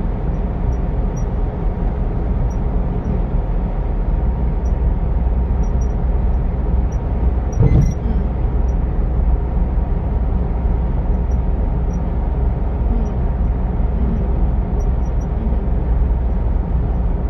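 Steady road and engine noise of a car travelling at speed, heard from inside the cabin as a low rumble, with one brief thump a little under eight seconds in.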